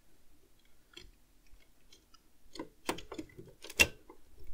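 Plastic and metal model parts clicking and knocking as the front valance panel of a DeLorean scale model is pressed onto the car's body. A single click about a second in, then a quick run of sharp knocks, the loudest near the end.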